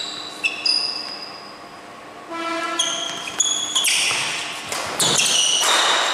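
Sounds of a badminton doubles rally: a quick string of sharp racket hits on the shuttlecock and shoe squeaks on the court floor, many with a short high ringing tone after them, with a louder rush of noise in the last couple of seconds.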